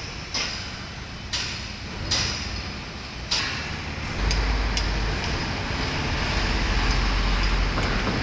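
Tram running on street tracks, heard from on board: several sharp clunks in the first few seconds, then a steady low rumble from about four seconds in.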